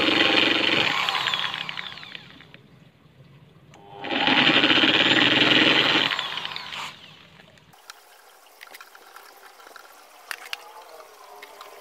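Electric drill boring through plywood with a twist bit in two runs, each trailing off as the motor slows. After about eight seconds this gives way to faint light clicks and scrapes as a threaded rod is fitted into the drilled hole.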